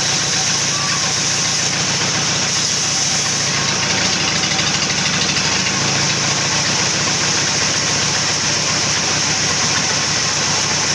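Sawmill machinery running steadily: a continuous engine-like drone with a high, steady hiss-like whine above it.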